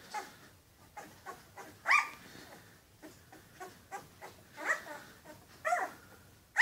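Litter of very young puppies whimpering and squeaking: short, high-pitched cries with soft rustling between them. The loudest comes about two seconds in, with more near the end.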